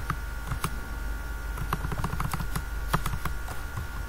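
Computer keyboard being typed on: irregular key clicks as text is deleted with backspace and retyped, with a quick run of taps about two seconds in. A steady hum sits underneath.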